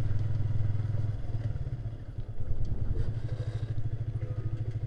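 Motorcycle engine running at low speed under the rider, a rapid even pulsing; its sound dips briefly about two seconds in, then picks up again.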